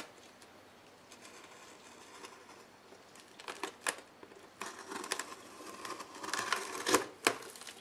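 Clear packing tape being peeled off a cardboard box: a crackling, tearing noise in several pulls, louder in the second half with two sharp peaks near the end.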